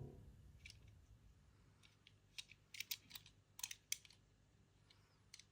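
Light, sharp clicks and taps, scattered and irregular and grouped in quick twos and threes in the middle, from small hard objects being handled.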